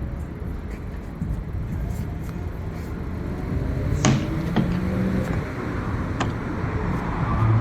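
Street traffic noise: a steady low rumble of passing cars, with a few sharp clicks about four and six seconds in.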